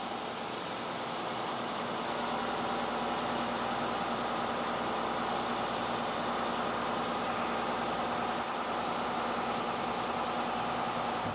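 Bucket truck engine running steadily, powering the hydraulics of the aerial boom as it swings the bucket. A constant hum with a few steady tones in it, growing slightly louder over the first couple of seconds.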